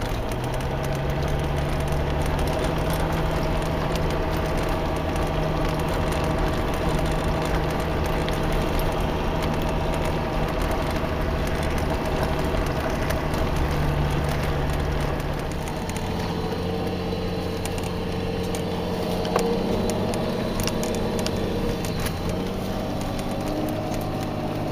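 Toyota Land Cruiser HDJ100's 4.2-litre straight-six turbodiesel running steadily under way, heard inside the cab while the truck drives a snowy track on snow chains. The engine note changes and drops a little about fifteen seconds in.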